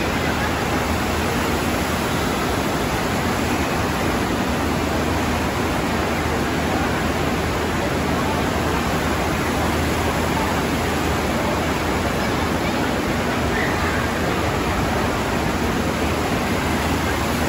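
Steady, loud rush of water from a FlowRider surf simulator, its thin sheet of water pumped continuously up the padded incline.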